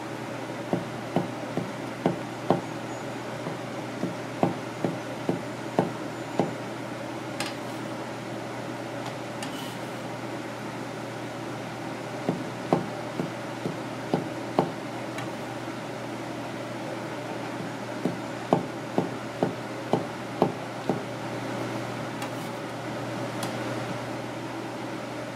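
Kitchen knife slicing through mushrooms and knocking on a wooden cutting board, in three runs of sharp cuts about one or two a second, over a steady low hum.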